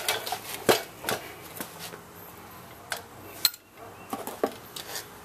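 Metal clinks and light knocks as a bolt and tools are picked up and handled during a brake job, a few scattered sharp taps with quieter handling noise between.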